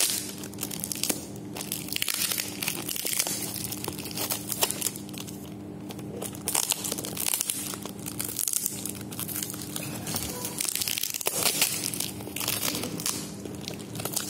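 A parcel's packing tape (lakban), plastic wrap and cardboard being picked at and torn by hand, with irregular crinkling and ripping. The tape is strong and hard to tear without scissors. A faint steady hum runs underneath.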